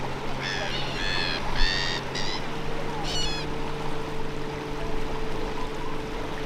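Shoreline ambience: a steady wash of wind and small waves under a low steady motor hum that shifts slightly in pitch a little over two seconds in. A bird gives four short, sharp calls in the first two seconds, then a quick chattering series about three seconds in.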